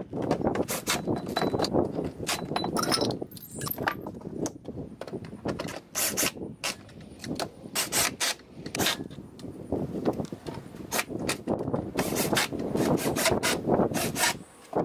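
Knocks, thumps and scraping on plywood as a person climbs into a plywood-lined van's cargo floor, kneels and crawls about, handling the wooden panels. Many sharp knocks come through it, between rubbing and shuffling.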